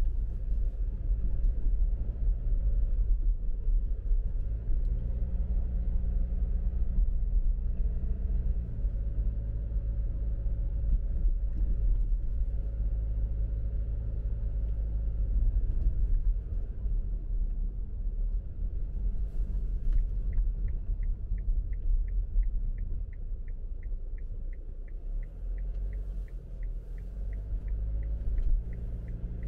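A car driving, with a steady low rumble throughout. About two-thirds of the way in a turn-signal indicator starts ticking evenly, about three ticks a second, and runs to the end.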